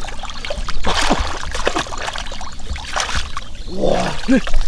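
Shallow muddy water splashing and sloshing in irregular strokes as hands grope through it for catfish.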